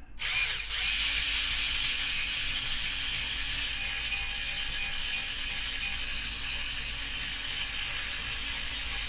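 Power drill running steadily as its twist bit cuts through the head of a diecast metal rivet post on a toy car's baseplate, drilling the head off so the base can come away. It starts just after the beginning.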